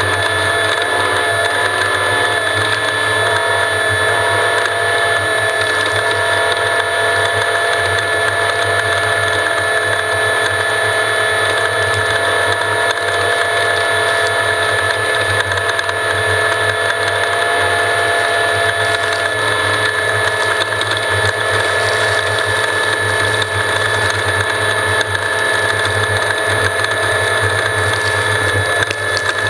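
Off-road race vehicle running at speed, heard from onboard: a steady mechanical whine over a dense rattle, unbroken throughout.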